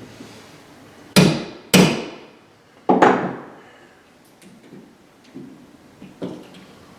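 Four hammer blows, each with a short ringing tail, the last two in quick succession, followed by a few light taps.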